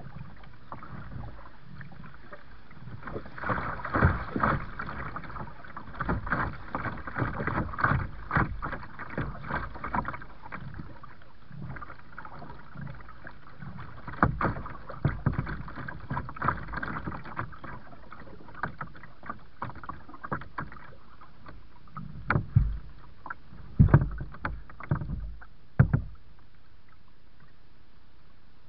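Kayak paddling: irregular paddle strokes splashing in the water, with occasional loud knocks. The strokes stop a couple of seconds before the end.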